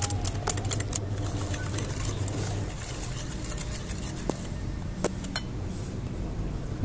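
A wire whisk clicking and scraping against a glass mixing bowl as eggs and sugar are beaten together: quick clicks in the first second, then a few scattered taps, over a low steady hum.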